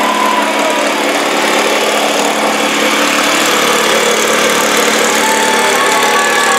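Class 11 stock Volkswagen Beetle race car's air-cooled flat-four engine running steadily at low speed as the car rolls off the finish ramp and pulls away.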